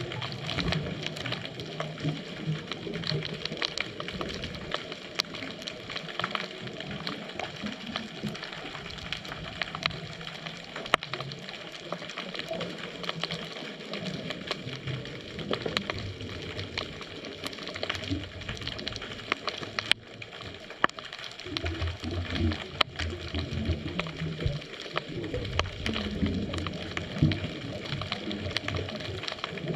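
Underwater sound from a scuba dive: a steady fine crackling and clicking, with a diver's exhaled bubbles rumbling in bursts every few seconds.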